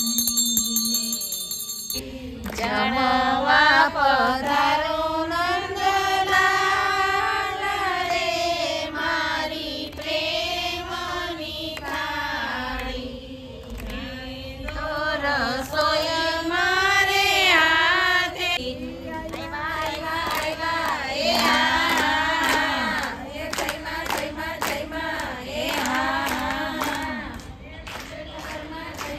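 A brass puja hand bell rings for about the first two seconds, then a group of women sing a devotional song together.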